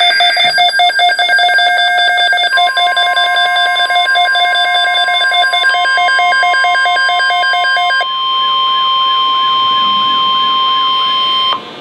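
NOAA Weather Radio alert tones ahead of a severe thunderstorm watch message. A rapid, pulsing electronic beeping at several pitches runs for about eight seconds. About two and a half seconds in, the steady 1050 Hz warning alarm tone joins it; after about eight seconds a warbling tone joins, and everything cuts off just before the end.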